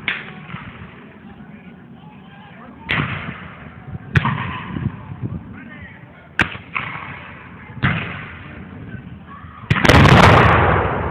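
Black-powder muskets firing blanks: about six sharp shots spaced a second or more apart, then a much louder, longer boom near the end that rings out for about a second.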